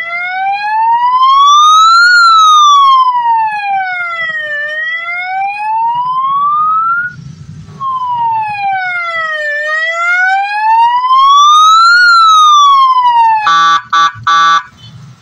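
A 12 V electronic police-style siren horn sounding a slow wail that rises and falls, each sweep taking about two seconds. It cuts out briefly about seven seconds in, then resumes. Near the end it gives a few short blasts of a steady horn tone.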